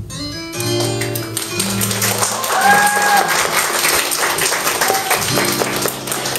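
The song's closing instrumental chords ring on as the audience breaks into applause about a second in, with a brief cheer near the middle.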